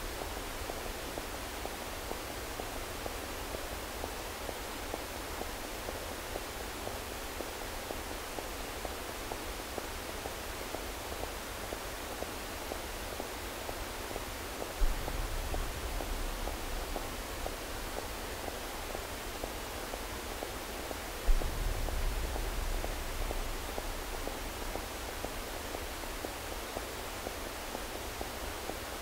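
Live-coded electronic noise music over loudspeakers: a steady hiss-like noise texture, with a sudden deep boom about halfway through and another about three-quarters through, each followed by a brief low rumble.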